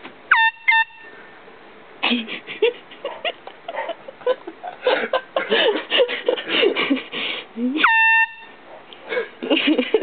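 Air horn blown in two short blasts about half a second in, then one longer blast near 8 s; each blast sweeps up in pitch at the start, then holds one blaring note. In between, people's voices.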